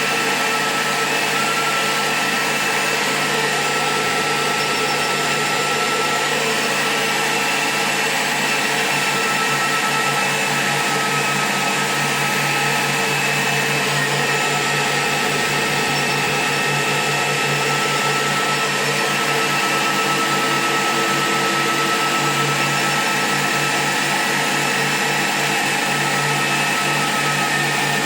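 Small electric motor running steadily with a high whine over a hiss, unchanging throughout.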